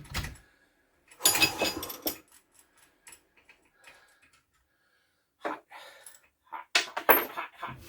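Metal tools and clutch parts being handled and set down, clinking and clattering in a few short bursts, the loudest about a second in.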